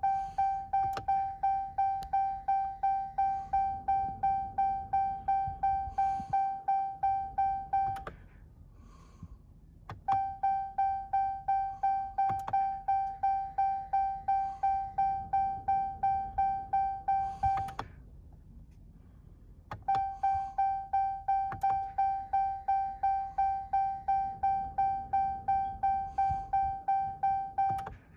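Truck dashboard warning chime dinging rapidly, about three dings a second, in three runs of roughly eight seconds with short pauses between, as the ignition is switched on and off repeatedly to prime the diesel fuel system after a fuel filter change.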